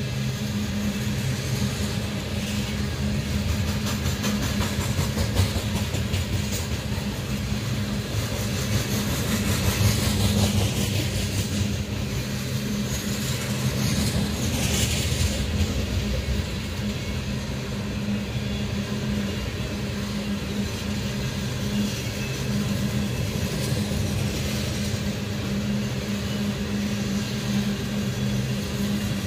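Train of ethanol tank cars rolling past, a steady noise of steel wheels on the rails.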